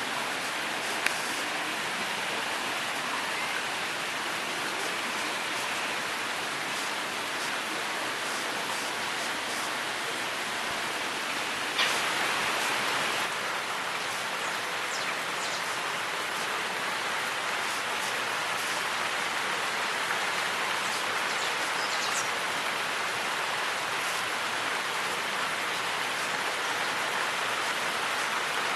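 Rainwater running down rock faces in the rain, a steady even rush of water, with a short louder surge about twelve seconds in.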